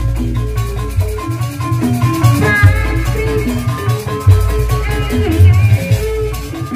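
Live Sundanese bajidoran jaipong music: kendang drumming with repeated deep bass beats under a melody line, at a steady loud level.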